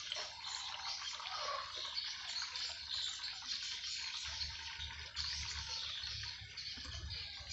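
Water running through PVC pipes into a homemade PVC filter tube as it fills, a steady hissing rush. A low rumble joins about halfway through.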